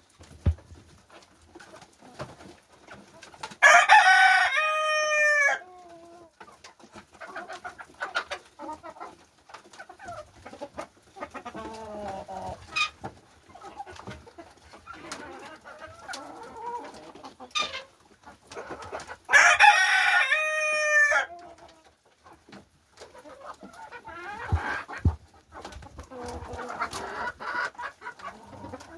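Chickens clucking, with a rooster crowing twice, about fifteen seconds apart, each crow about two seconds long and dropping in pitch at the end.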